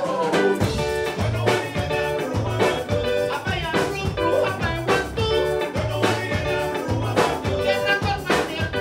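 Band music with a steady dance beat: drums, bass and electric guitar.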